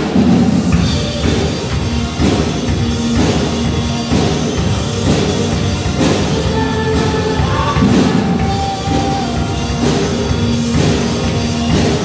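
Live band playing a song on drum kit, electric guitars and keyboard, with a singer on microphone.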